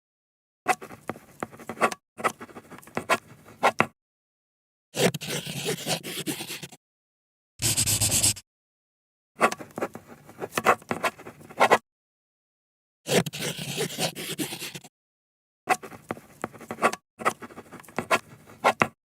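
Pen writing on paper: a series of separate takes of quick, scratchy pen strokes, each a second or two long, with silence between them. One shorter, smoother stroke comes just before the middle.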